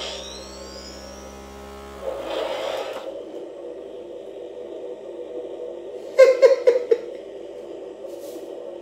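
Spengler's Neutrona wand replica from Ghostbusters powering up through its speaker. A whine sweeps up and down over the first second or so above a low hum, a noisy burst comes about two seconds in, and then it settles into a steady electronic hum. A short, loud stuttering burst comes about six seconds in.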